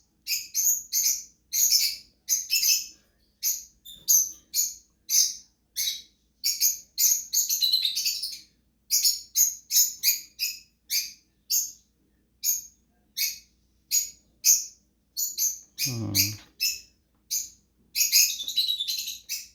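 Cockatiels chirping repeatedly in short, high calls, about two or three a second, with a few short pauses.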